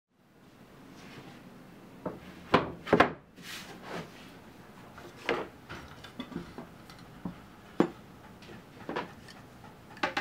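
Irregular wooden knocks and clunks of workshop handling, with some rubbing between them; the two loudest come close together about two and a half seconds in, and a quick cluster follows near the end.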